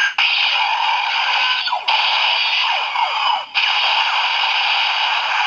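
Kamen Rider Drive DX Break Gunner toy playing an electronic finisher sound effect through its small built-in speaker. It gives harsh, noisy blasts with falling swooshes and two short breaks, about two seconds in and again at three and a half.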